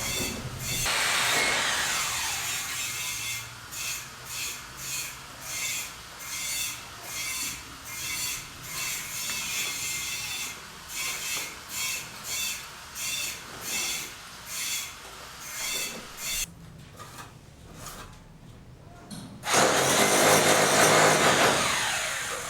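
Woodworking on a building site: rhythmic hand-tool strokes on wood, a little over one a second. A power tool runs briefly at the start and again near the end, its pitch falling as it winds down.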